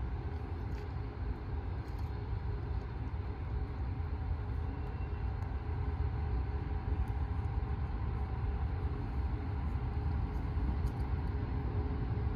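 A railway train running, heard as a steady low drone with a faint steady tone above it, growing gradually louder; a few faint light clicks.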